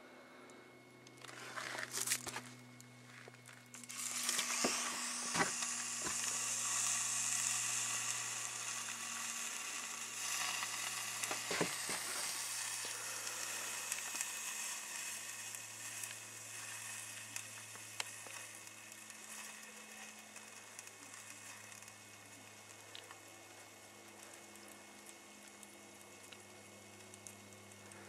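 Freshly burnt, melted Motorola cell phone sizzling and crackling in an opened microwave. A hiss comes on suddenly about four seconds in and slowly dies away, with scattered crackles.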